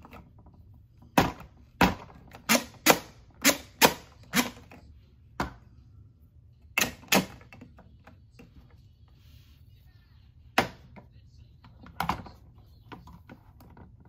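Toy playset pieces clacking as they are set and pressed into place on the playset: about a dozen sharp knocks, quick and close together in the first five seconds, then a few more spread out.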